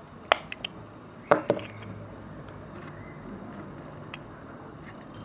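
Sharp metal clicks from an octagonal pocket watch case being worked open with a prying tool: one click near the start, then a louder double snap about a second later.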